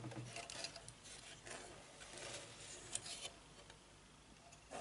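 Faint handling noise: rustling and light clicks as a motherboard and its CPU cooler are touched and moved, with one sharper click about three seconds in and a short knock near the end.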